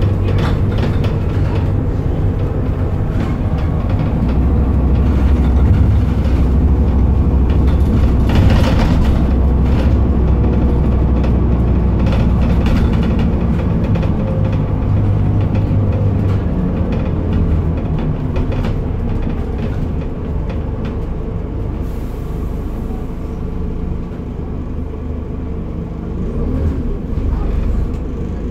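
Scania N230UD Enviro400 double-decker bus's five-cylinder diesel engine running as the bus drives along, heard from inside the passenger saloon as a steady low drone with occasional knocks. The engine note eases off in the second half as the bus slows, then picks up briefly near the end.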